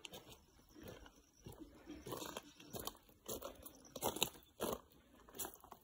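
Footsteps crunching on loose gravel and broken stone, uneven and growing stronger from about two seconds in.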